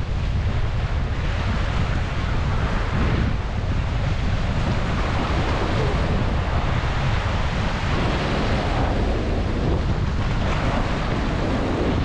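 Winter sea waves breaking over rocks and washing against a concrete seawall, a continuous surf wash that swells and eases every few seconds. Wind buffets the microphone underneath as a steady low rumble.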